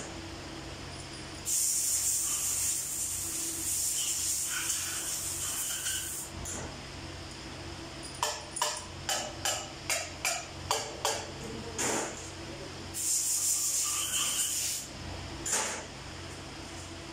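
Metal parts being worked on during diesel engine assembly: two hiss bursts of several seconds and a shorter third, with a run of about ten sharp metallic taps between them, about three a second. A steady low hum underlies it all.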